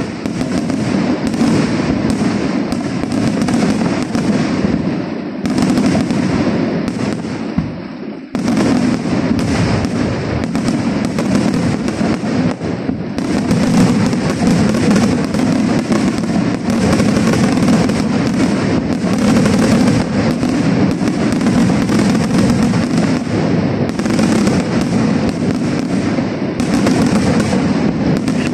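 Aerial fireworks display firing a dense, continuous barrage of shell launches and bursts: a rapid, unbroken stream of bangs and crackling, with a brief lull about eight seconds in.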